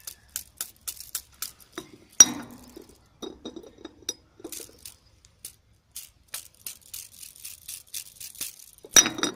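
A glass being struck over and over with a hard plastic fidget spinner: a run of quick clinks and taps, with two louder ringing hits about two seconds in and near the end.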